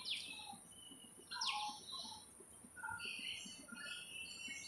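Faint birds chirping in the background: scattered short chirps, with two quick falling calls near the start and about a second and a half in.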